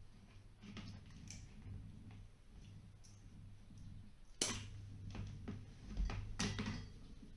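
Scattered clicks, taps and handling noises of hand work on electrical wiring, with two louder sharp clacks a little past the middle, about two seconds apart, over a faint low hum.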